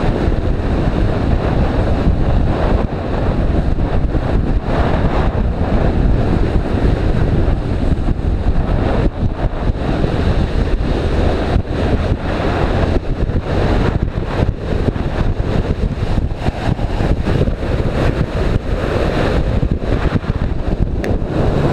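Heavy wind buffeting the microphone while riding: a loud, steady rumbling rush that is strongest in the lows.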